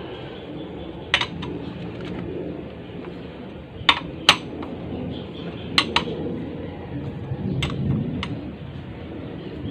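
Hand tools and metal engine parts clinking as a Bajaj CT100 motorcycle engine is put back together and its cylinder head nuts are tightened: about seven short, sharp metallic clinks, spaced irregularly, over a low background.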